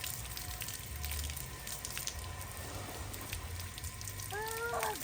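Beach rinse shower running, water spraying and pattering steadily, with a brief vocal 'ooh'-like sound near the end.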